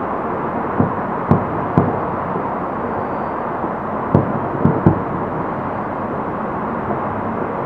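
Distant aerial fireworks bursting: about six dull booms in two clusters, three in the first two seconds and three more about four to five seconds in, over a steady background noise.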